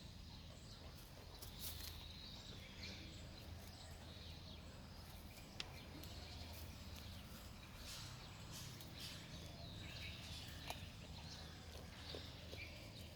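Faint outdoor ambience: a low steady hum with scattered high chirps and two sharp clicks, one near the middle and one near the end.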